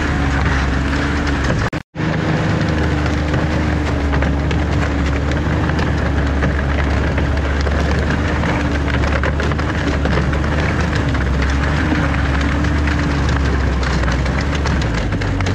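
Vehicle engine running steadily while on the move, with a low drone and a wavering hum; the sound breaks off for an instant about two seconds in.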